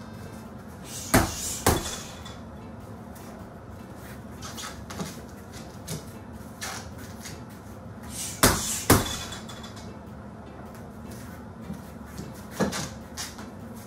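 Two pairs of sharp knocks, one about a second in and another about eight and a half seconds in, with softer single taps between them.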